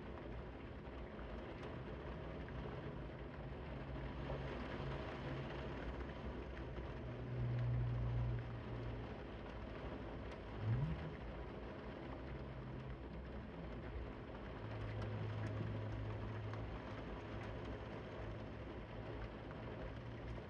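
Steady rain falling, an even hiss. A low droning hum comes and goes over it, swelling about seven seconds in and again from about fifteen seconds, and a short rising whine sounds about ten seconds in.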